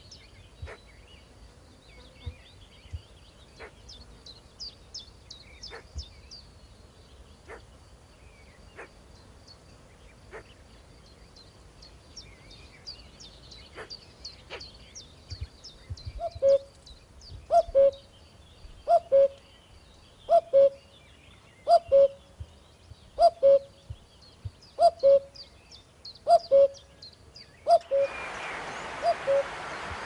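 Common cuckoo calling its two-note "cu-coo", a higher note then a lower one, loud and repeated about every second and a half, some nine times in the second half. Before it starts, small birds chirp thinly and high in the background, and near the end a steady hiss comes in.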